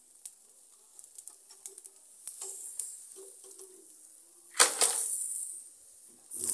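Smoked beef being lifted off a wire grill over a charcoal stove and put into a plastic basin: light clicks and scrapes of handling, with a louder, noisy rustle about two-thirds of the way in and another near the end.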